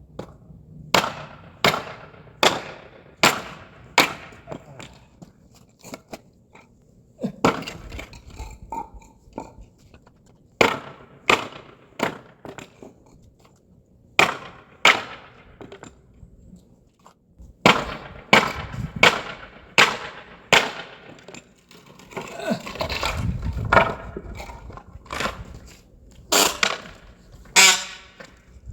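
Repeated sharp blows on wooden pallet boards, in runs of two to five strikes about a second apart, with a rougher stretch of cracking and rattling wood about two-thirds of the way through.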